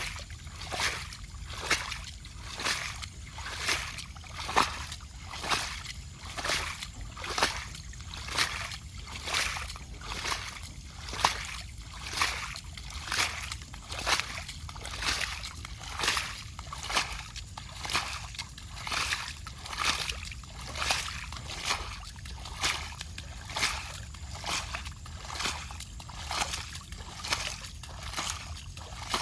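Water being splashed in a steady rhythm, about four splashes every three seconds.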